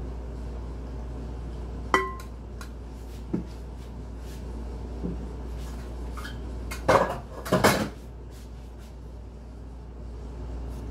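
Kitchen utensils and dishes clinking while cake batter is made in a glass bowl. One sharp clink rings briefly about two seconds in, a few light knocks follow, and there is a louder clatter of two bursts around seven to eight seconds in.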